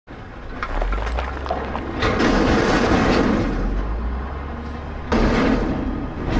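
Dump truck sound effect: a heavy truck's low engine rumble, with a sudden louder surge of noise about two seconds in and another just after five seconds.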